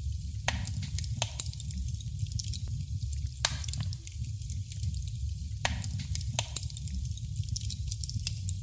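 Wood fire in a fireplace crackling: a steady low rumble of the flames with irregular sharp pops and snaps scattered through, a few of them louder than the rest.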